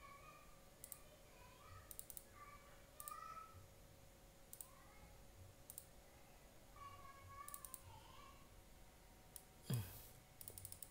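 Faint, irregular computer mouse clicks, roughly one a second, with a short louder thump near the end.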